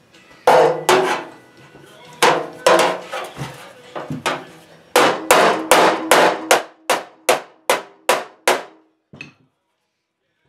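Body hammer striking the 1963 Chevy C10's steel fender against a dolly held behind the panel, to work out dents and high spots. The blows are sharp and metallic, each with a short ring. They come irregularly at first, then settle into a steady run of about three a second from about halfway, and stop a second before the end.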